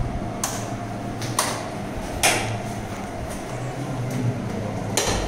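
Old 35mm cinema film projector running with a steady mechanical hum. Four sharp knocks sound over it, the last near the end.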